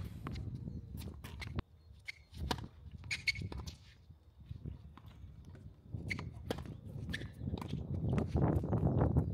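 Tennis play on court: irregular sharp knocks of ball hits and bounces, with footsteps and short shoe squeaks, over a low rumble that swells near the end.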